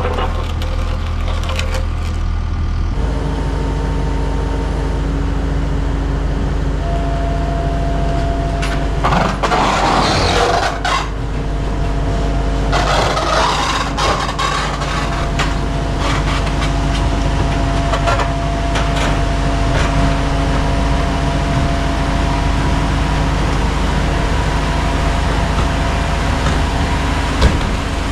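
Diesel engine of a Takeuchi TL8R2 compact track loader running steadily as it carries a load, its note changing about three seconds in. A few knocks come in the first seconds, and there are two short noisy bursts around ten and thirteen seconds.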